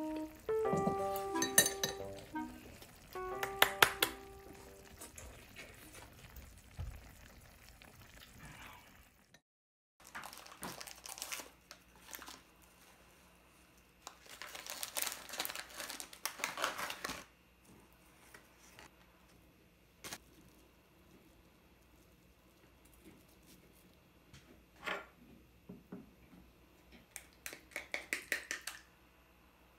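Soft background music with a few clinks, fading out in the first several seconds. After a short break comes the crinkling of a plastic cracker packet being opened, then scattered light clicks and clinks near the end.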